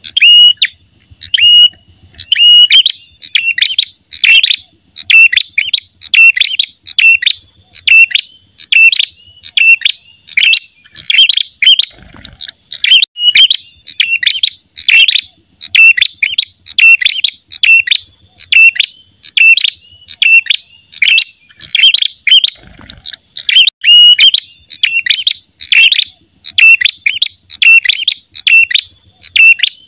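Male ashy tailorbird giving its loud aggressive 'fighting' song, the territorial challenge used as a lure: sharp, clear, repeated notes at about two a second, without pause.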